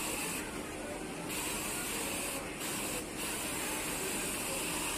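Overlock sewing machine running with a steady high hissing whir, which drops away for about a second near the start and twice briefly near the middle.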